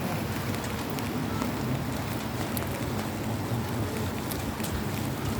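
Rain drumming on an umbrella overhead: a steady hiss with scattered sharp taps of drops, over a low rumble.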